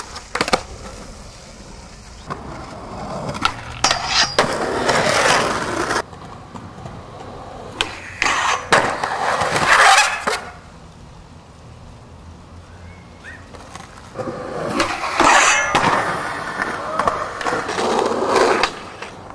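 Skateboards rolling and sliding on concrete and asphalt in three separate runs, a rough scraping rush each time, with sharp clacks of the board striking the ground.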